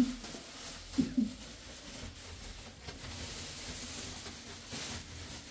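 Faint rustling of a plastic sheet being handled, with a short louder rustle near the end. A brief spoken sound about a second in.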